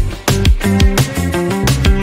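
Background music: an upbeat electronic track with a steady, quick drum beat and pitched synth notes.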